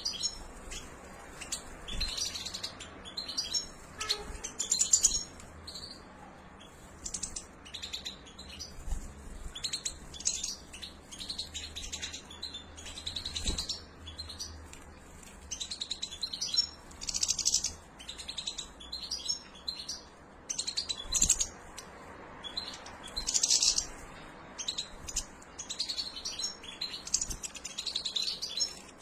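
Juvenile European goldfinches calling, a run of short, high chirps and twitters that come in quick clusters every second or so.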